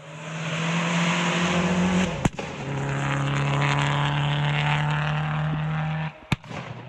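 Peugeot 206 WRC rally car's turbocharged four-cylinder engine held at high revs as it comes closer, with two sharp exhaust bangs: one about two seconds in as the note breaks, the second near the end as the engine lets off.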